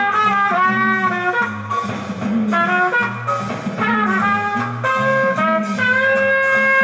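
Big-band jazz with trumpets and trombones playing chords, played back on a restored 1961 Akai M-5 tube reel-to-reel tape recorder as its final test. The horns move through short chords, then hold one long chord near the end.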